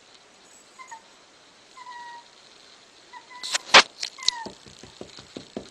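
A young pet gives about four short, high, falling whimpers. In the second half there is a flurry of sharp clicks and knocks, the loudest about four seconds in.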